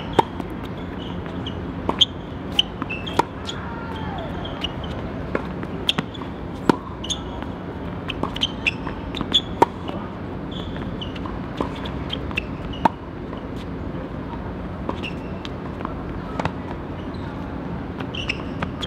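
Tennis balls being struck by rackets and bouncing during play, a string of sharp pops at uneven intervals over steady background noise.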